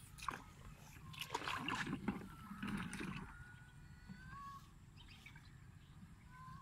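Pond water sloshing and splashing as a plastic-bottle fish trap is pushed down into the shallows by hand, busiest in the first half and settling after about three seconds.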